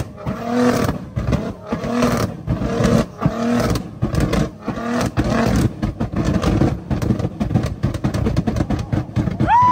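Nissan GT-R R35's twin-turbo V6 held on a two-step rev limiter, banging and crackling out of the exhaust as it shoots flames, surging about every second and a half and then crackling almost continuously in the second half. A high held tone comes in just at the end.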